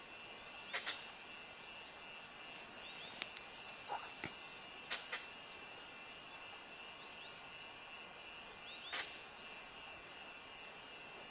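Goral giving sharp, short alarm sneezes, the snorting blasts it makes at a threat: a quick pair about a second in, another near five seconds and one near nine. A steady high insect drone runs underneath.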